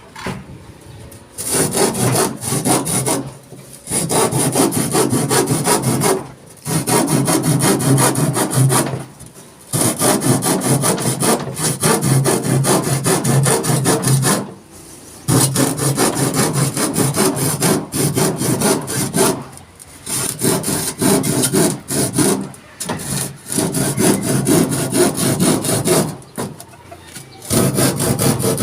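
Handsaw cutting through wood, in repeated runs of quick back-and-forth strokes with short pauses between them.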